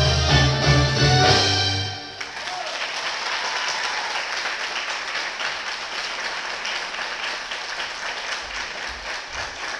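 Live Arabic band music on keyboards and hand drums ends abruptly about two seconds in. The audience then applauds, and the clapping slowly dies down.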